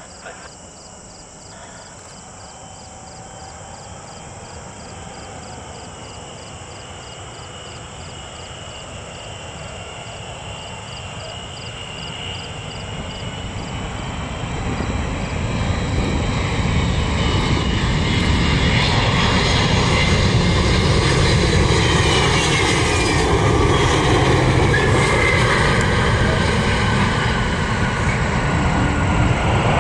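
Boeing 777-200 airliner's jet engines on landing approach, growing steadily louder as it nears for about the first half, then loud. The engine whine drops in pitch as the jet passes and touches down.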